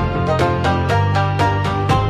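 Upbeat background music with a steady beat, bass line and melodic notes.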